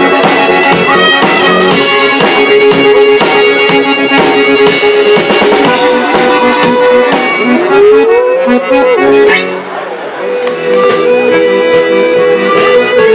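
Live band music led by an accordion, with a fiddle and drums. About nine seconds in there is a quick rising slide, and then the drums and low end drop out for about a second before the music carries on.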